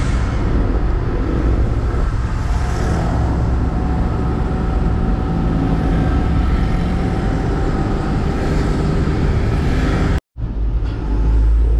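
Truck engine running steadily while the truck is driven, heard inside the cab with road noise; the sound cuts out for an instant about ten seconds in.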